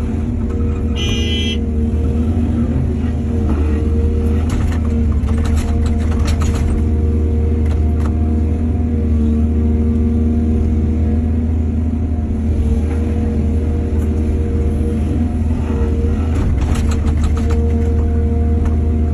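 Excavator's diesel engine running steadily under hydraulic load, its pitch rising and falling slightly as it works. A short high squeal comes about a second in, and clattering and scraping noises come twice, in the middle and near the end.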